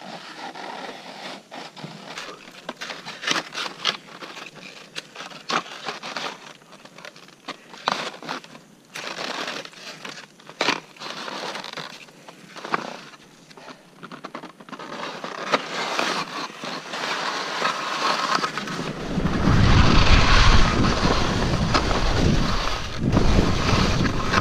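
Skis scraping and clattering on hard, icy snow and rock, with many short sharp knocks of edges and poles, as the skier side-slips down a steep, narrow couloir. About nineteen seconds in, a loud rushing of wind on the microphone and snow under the skis takes over as the skier picks up speed.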